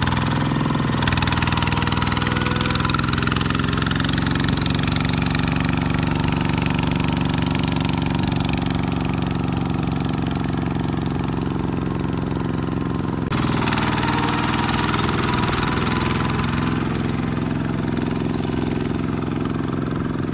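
Kubota RT140 walking tractor's single-cylinder diesel engine running steadily while it pulls a loaded trailer through mud. The sound shifts abruptly about a second in and again after about 13 seconds.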